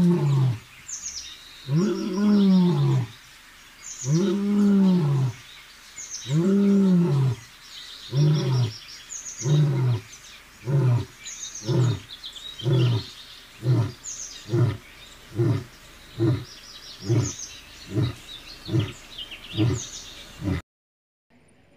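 Male Asiatic lion roaring: four long roars about two seconds apart, then a run of about a dozen shorter grunts that come quicker and quicker, a little under one a second, and end about 21 seconds in. Birds chirp in the background.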